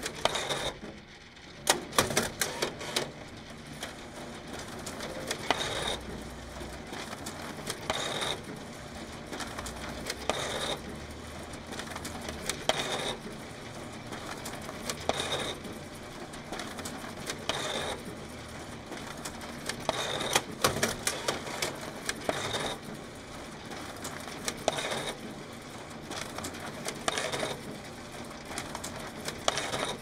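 Photocopier making a run of copies: a steady mechanical whir, with a swish as each sheet feeds through, repeating about every two and a half seconds. There are sharp clicks now and then, a cluster near the start and another about two-thirds of the way through.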